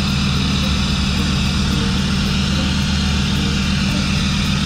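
Ford Ranger 3.2 five-cylinder turbodiesel idling steadily through a straight-through exhaust with no muffler, only a chrome tip.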